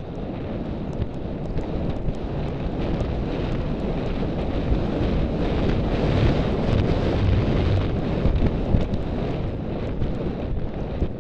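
Wind rushing over the microphone of a rider's helmet camera as the horse gallops across country, a loud steady buffeting that swells slightly in the middle.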